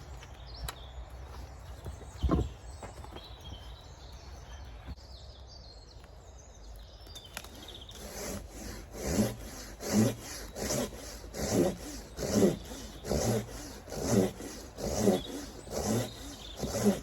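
Hand saw cutting through a log in steady back-and-forth strokes, a little over one a second, starting about halfway in. A single knock comes a couple of seconds in.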